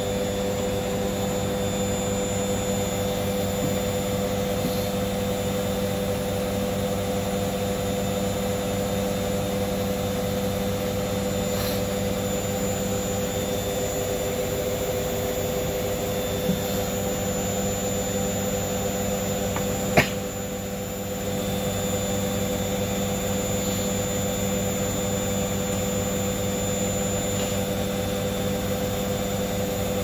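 Hoover Dynamic Next front-loading washing machine in its final spin, the drum turning at a steady speed with a constant motor whine and hum. A sharp click comes about two-thirds of the way through, and the sound dips slightly for about a second before settling back.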